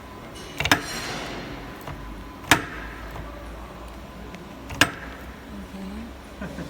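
Pneumatic welding cylinder on a face mask machine's earloop welding unit, worked by hand from the control panel, striking with three sharp clacks about two seconds apart, the first followed by a short hiss.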